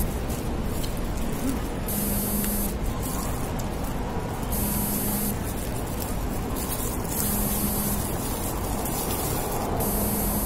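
Mobile phone going off with an incoming call that is left unanswered: a buzz under a second long repeating about every two seconds.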